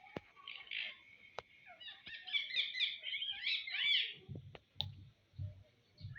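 Ring-necked parrot chattering: quick, high, squeaky notes that build into a dense run about two seconds in and stop after about two seconds. A few soft, low sounds follow near the end.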